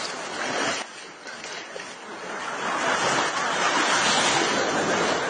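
Surf washing and breaking, with wind buffeting the microphone; the rush drops away about a second in and builds again over the next couple of seconds as another wave comes in.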